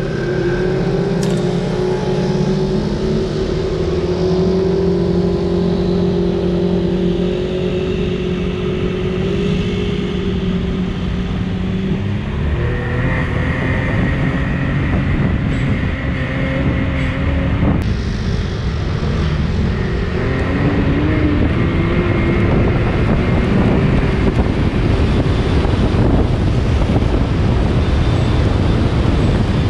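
Side-by-side UTV's engine running under way, its note holding steady, then shifting about twelve seconds in and climbing again near twenty seconds, with road and wind noise growing louder toward the end.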